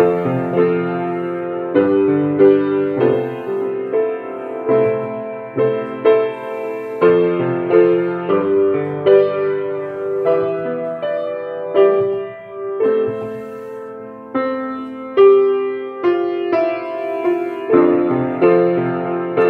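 Upright piano played slowly by a learner: a simple melody over chords, the notes struck about one or two a second and left to ring, briefly softer past the middle.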